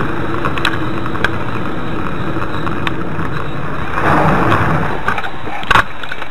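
Steady car engine and road noise as picked up inside a car's cabin, with a few light clicks, a brief louder rush about four seconds in, and a sharp click near the end.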